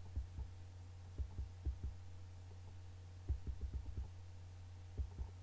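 A steady low hum with irregular soft low thumps in small clusters, a few times.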